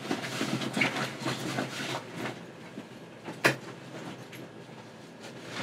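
Handling noise from rummaging among hard objects: irregular rustling and light clattering for about two seconds, then one sharp click.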